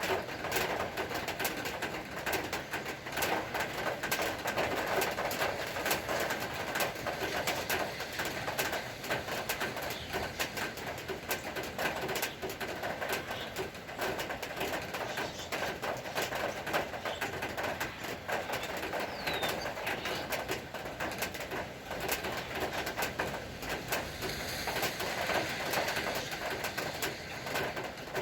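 Rain falling steadily, a dense, even hiss of many small drop impacts, with birds calling in the background.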